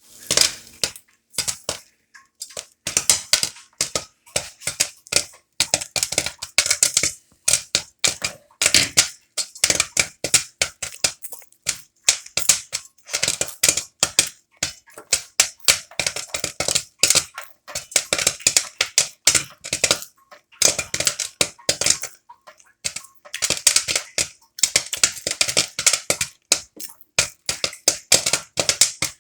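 Popcorn making quick, sharp crackling clicks in dense clusters, with short breaks between them.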